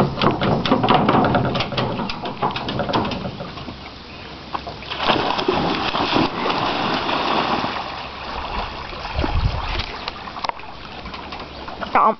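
A yellow Labrador retriever splashing and sloshing through lake water as she swims out to fetch a toy, with a quick run of ticks and knocks in the first few seconds.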